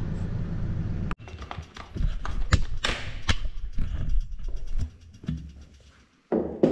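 A low steady hum that cuts off about a second in, then a run of irregular metallic knocks and taps as tools and steel parts are handled on an excavator swing motor and gearbox being dismantled.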